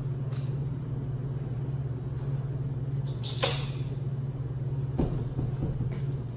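A glass shop door's floor lock being unlocked: a sharp metallic click about three and a half seconds in, then a dull thud about a second later, over a steady low hum.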